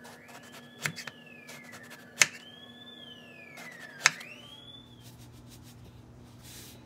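A chef's knife slicing through an eggplant and knocking on a wooden cutting board, three sharp knocks about two seconds apart. Behind them a siren wails, rising quickly and falling slowly about every two seconds, and stops about five seconds in.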